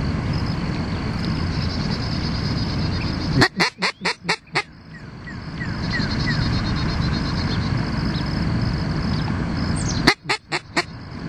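Hand-blown teal duck call sounding a hen blue-winged teal's quack: a quick run of about six sharp quacks, then about five more near the end. This is over steady low background noise, and a few faint high falling chirps follow the first run.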